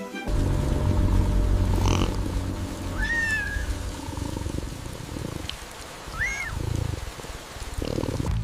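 A cat purring with a low rumble, strongest in the first few seconds, and mewing twice in short high calls.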